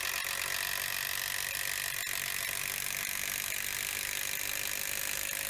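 DeWalt 20V cordless impact driver running steadily under load, driving a long log screw down through a 6x6 cedar log into the log beneath.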